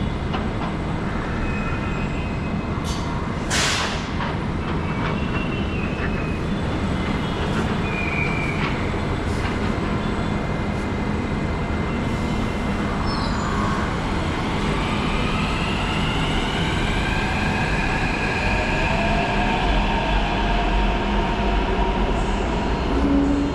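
Hyderabad Metro electric train running at an elevated station, with a steady rumble. A short hiss comes about three and a half seconds in, and from about the middle a whine of several tones rises in pitch.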